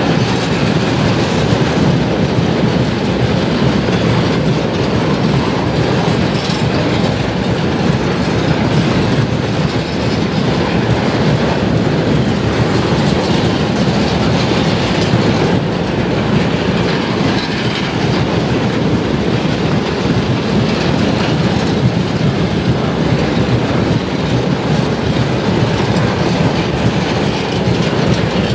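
A long freight train of railway tank cars rolling past close by: steady, continuous wheel-on-rail noise from the passing wagons.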